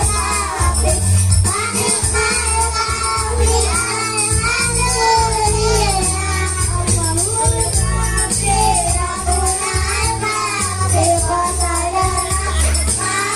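Group singing with frame-drum percussion and a steady low beat: a hadrah-style Islamic song performance.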